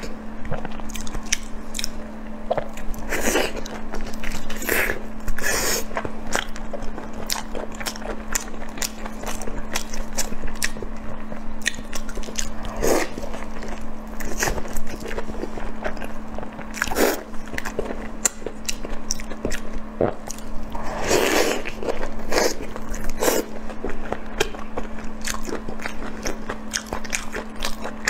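Close-miked eating: a person biting and chewing food with many short, sharp mouth clicks and smacks, and a steady low hum underneath.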